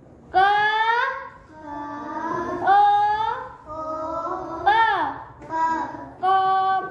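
A young child reading aloud in a drawn-out sing-song chant, one syllable or word at a time with short breaks between.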